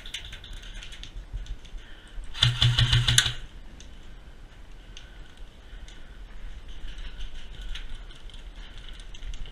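A short burst of full-auto fire, about a second long, from a JG M4A1 electric airsoft rifle: a buzzing rattle of rapid shots. Faint scattered clicks and ticks come before and after it.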